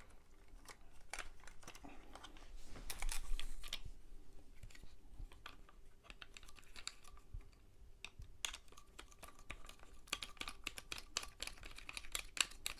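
Rapid small clicks and rattles of a tablet holder being screwed onto the mounting screw of an aluminium tripod, in bursts, busiest about three seconds in and again over the last four seconds.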